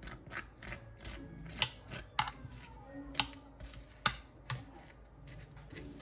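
Metal table knife clicking and scraping against a glass baking dish while spreading cream cheese frosting on cinnamon rolls. It comes as irregular light taps, about two a second, with a few sharper clinks near the middle.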